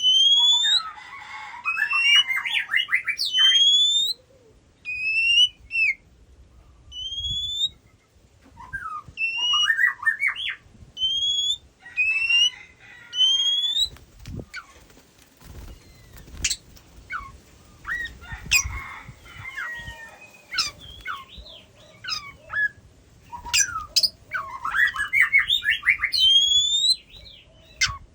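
Oriental magpie-robin singing: a run of short, clear whistled phrases, many rising sharply, broken by bursts of quick jumbled notes, with brief pauses between phrases.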